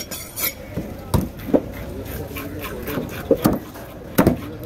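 Heavy curved cleaver chopping at a whole octopus on a wooden block: a run of sharp, irregular knocks of the blade on the wood, with a close pair near the end.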